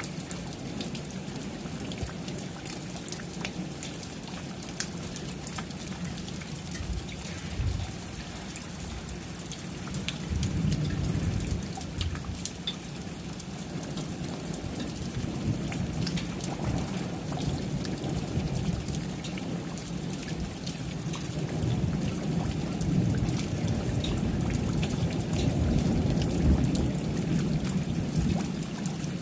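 Steady rain with the fine ticks of individual drops, and low rolling thunder that swells twice, about a third of the way in and again through the last third.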